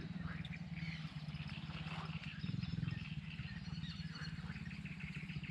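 A low, rapidly pulsing chorus of wild animal calls that swells and fades in bouts, with bird chirps above it.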